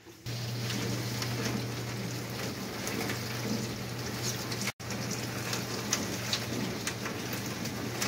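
Dishwasher running its wash: the circulation pump hums steadily and the spray arm sprays water against the inside of the door, a pattering like rain, with few soap suds left after vegetable oil was added to break them down. The sound starts just after the beginning and drops out for a moment just before halfway.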